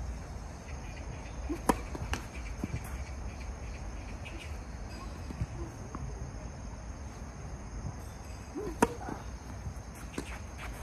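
Tennis racket hitting the ball and the ball bouncing on a hard court: a few sharp, widely spaced knocks, the loudest about 2 s in and just before 9 s in as the second serve is struck, with a cluster of smaller knocks near the end. A steady high tone runs underneath.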